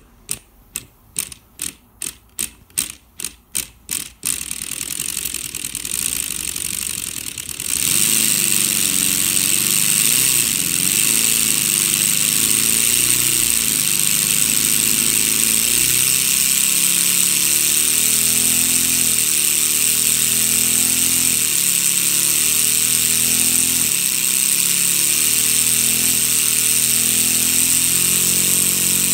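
A LEGO Technic model V-engine driven by a motor. First comes a run of about ten sharp clicks, roughly two or three a second. After about four seconds it is running fast and steady with a loud plastic clatter and a high hiss, which steps up in level about eight seconds in.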